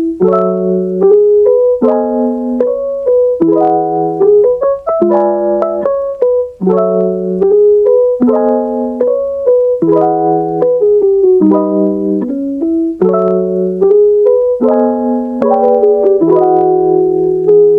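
Background music: a soft piano track playing repeated chords, about one chord change every second and a half.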